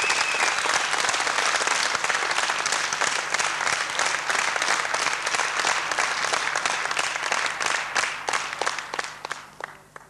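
Audience applauding, steady at first, then thinning to scattered claps and dying away near the end.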